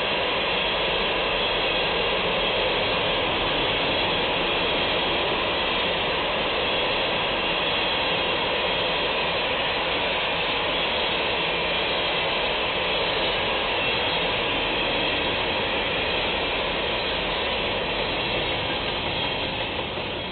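Empty freight hopper cars of a long train rolling past on the rails: a steady, loud noise of steel wheels on track that fades near the end as the last car goes by.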